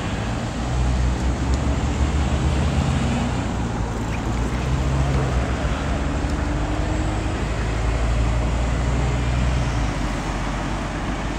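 Road traffic: engines of cars and a city bus running on the road, a steady low hum under a constant rumble of traffic.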